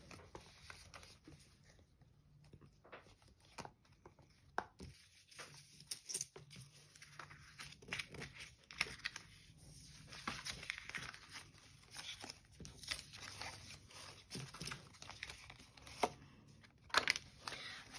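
Polymer banknotes and a paper challenge card rustling and crinkling as they are handled and shuffled on a desk, in irregular short crackles and small taps.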